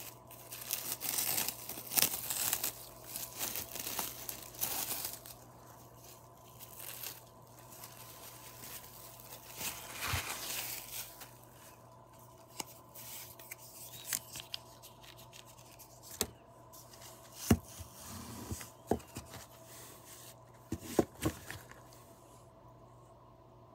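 Clear plastic wrap crinkling and tearing as it is pulled off a bundle of cigars, thickest in the first five seconds or so. After that come scattered light knocks and clicks as the bare bundle is handled.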